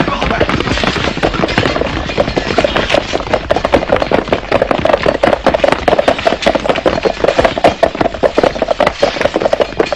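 Battle din: a dense, rapid clatter of many small impacts, with a crowd of men yelling.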